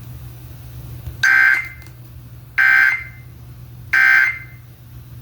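Emergency Alert System end-of-message data tones received over FM radio: three short, equally spaced bursts of warbling two-tone data, about a third of a second each, signalling the end of a severe thunderstorm warning.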